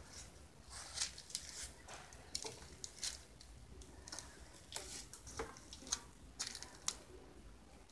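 Faint, irregular clicks and scuffs, about a dozen scattered through.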